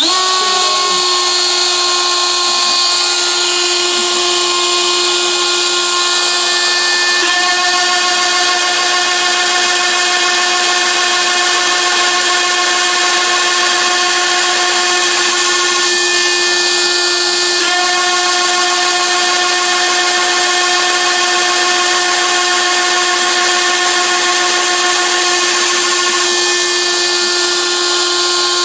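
Carbide 3D router spindle on a Shapeoko CNC machine running at speed with a steady high whine as its bit bores holes in black acrylic sheet. An extra tone joins the whine twice, each time for about eight seconds.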